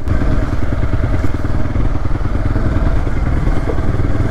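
Off-road motorcycle engine running steadily while being ridden.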